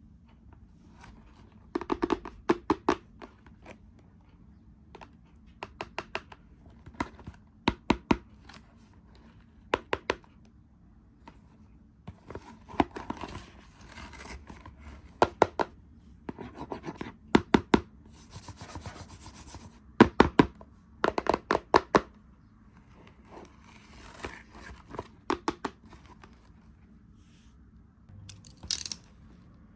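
Hands handling and opening toy packaging: clusters of sharp clicks and taps from plastic and cardboard, with scratching and short tearing rustles.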